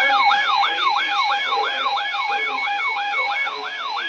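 Weather alert radio sounding its siren-like warning alarm, a fast electronic yelp that sweeps up and down about three times a second over a steady tone. It heralds a Severe Thunderstorm Warning broadcast.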